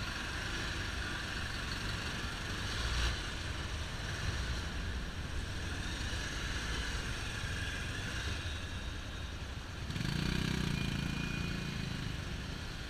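Motorcycle engine running at low speed with steady road and traffic noise while filtering between cars. A deeper engine hum swells for about two seconds, about ten seconds in.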